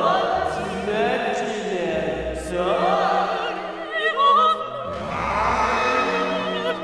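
Operatic singing with a wide vibrato over orchestral accompaniment, the held notes sliding between pitches.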